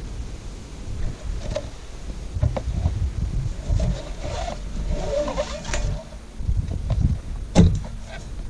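Ratchet tie-down straps being handled while a generator is strapped onto a quad's rack: webbing rustling and scraping through the buckles, scattered clicks, and a sharp click about a second before the end. An uneven low rumble of wind on the microphone runs underneath.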